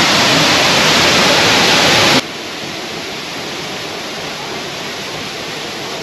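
Waterfall rushing, a steady hiss of falling water that drops suddenly to a softer rush about two seconds in.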